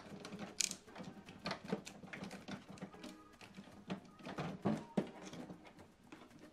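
Faint, irregular plastic clicks and taps from hands working the printhead carriage latch inside an HP Smart Tank 5105 inkjet printer.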